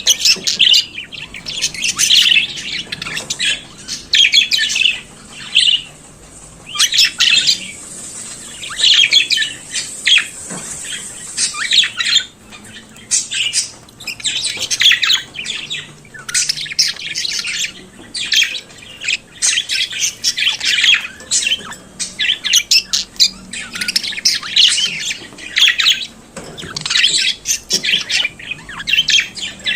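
Budgerigar warbling and chattering: rapid runs of chirps, clicks and squawks in near-continuous bursts with short pauses.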